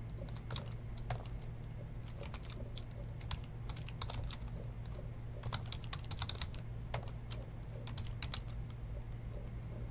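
Typing on a computer keyboard: irregular runs of key clicks, busiest about four and six seconds in, over a steady low hum.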